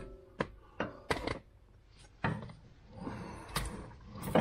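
Several sharp metal knocks and clunks at irregular intervals as a suspension strut and tools are handled and worked into place.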